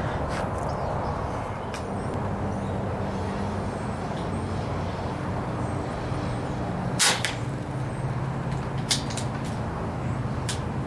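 A single shot from a .25-calibre Daystate Air Ranger PCP air rifle about seven seconds in, a sharp crack over a steady low hum. Two fainter clicks follow near the end.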